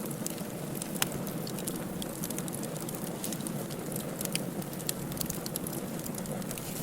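Firewood burning in a fireplace: a steady low rumble of flames with irregular sharp crackles and pops, one louder pop about a second in.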